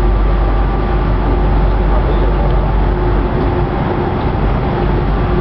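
Steady drone of a towboat's diesel engines pushing a tow of barges, with wind rumbling on the microphone.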